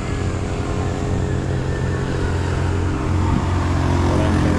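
Yamaha NMAX scooter's single-cylinder engine idling steadily.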